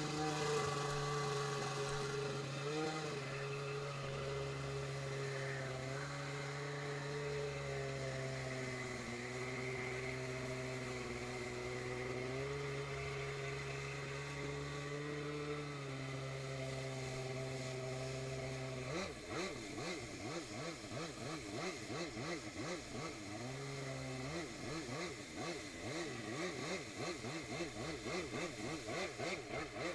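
The Dasa 850 two-stroke twin of a stand-up freestyle jet ski runs under way with a steady note and small shifts in pitch, over rushing water. About two-thirds of the way through, the note starts rising and falling rapidly over and over, steadies briefly, then goes back to the rapid rises and falls.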